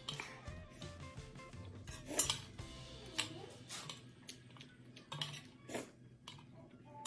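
Noodle soup being eaten from a steel bowl with chopsticks and a spoon: a handful of short clinks of the utensils against the bowl and slurps, the loudest about two seconds in. Soft background music plays underneath.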